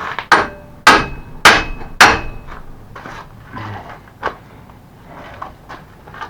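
Hammer blows on metal, four sharp strikes about half a second apart, each with a short ring, then one lighter knock a couple of seconds later: working a rusted hinge pin loose on a mobility scooter.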